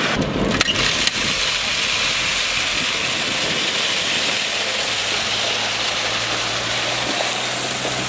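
Tipper truck with its bed raised, engine running and gravel chips pouring off the back in a steady rushing hiss. A few knocks near the start, and a low engine hum sets in about five seconds in.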